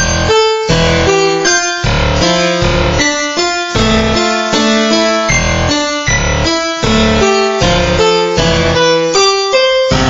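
MIDI music rendered to audio with a synthesized keyboard sound, playing short chords in a steady rhythm with brief gaps between them.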